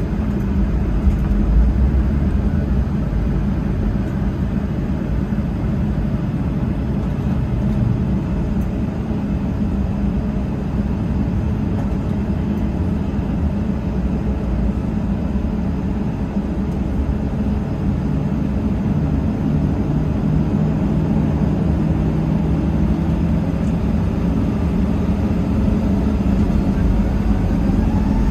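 Cabin noise of a Boeing 737-900ER taxiing, heard inside the cabin: its CFM56-7B jet engines run at low taxi thrust under a steady low rumble. Near the end a whine begins to rise as the engines start to spool up for takeoff.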